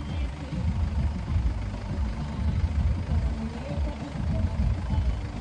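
Swaraj tractor's diesel engine running, a low, uneven rumble.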